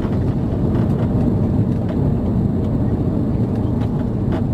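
Steady low rumble of airliner cabin noise, with a few faint rattles or clicks.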